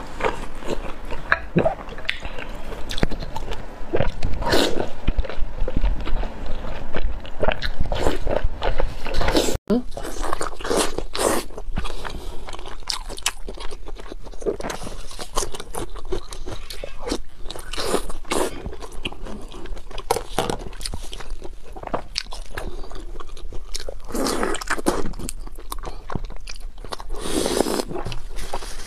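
Close-miked eating sounds of lamb intestines in chili oil: biting, chewing and wet squelching, irregular and continuous, with a brief drop-out about ten seconds in.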